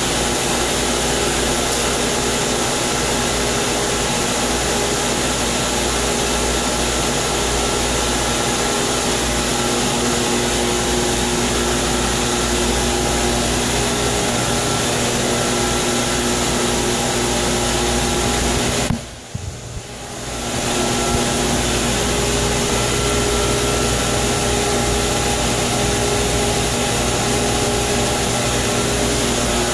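Circulation pump and filter plumbing running: a steady mechanical hum with several held tones. It drops out briefly about nineteen seconds in, then comes back.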